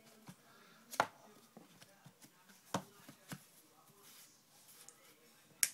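Trading cards and their packaging being handled: a few sharp taps and clicks, about four, spread out over faint rustling.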